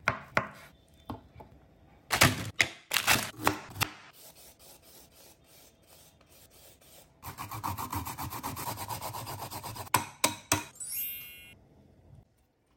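A kitchen knife chopping tofu on a wooden cutting board in quick strikes, then the scraping strokes of a vegetable peeler on a white radish and a steady rasping rub as the radish is grated. A short rising chime sound effect follows near the end.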